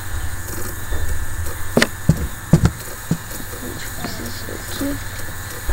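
A few sharp computer-mouse clicks, four in just over a second, picked up by a desk microphone over a steady low hum and hiss.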